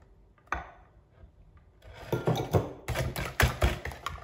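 Wire balloon whisk beating a runny egg, sugar and oil batter in a plastic mixing bowl: quick, rhythmic clattering strokes, about four a second, starting about halfway through, after a single light click about half a second in.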